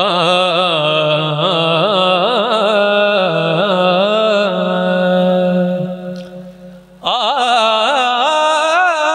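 A man's voice singing long, wavering melodic phrases into a microphone, as in the tarannum style of chanting Urdu poetry. The first phrase is held about six seconds and fades out, and a second begins about seven seconds in.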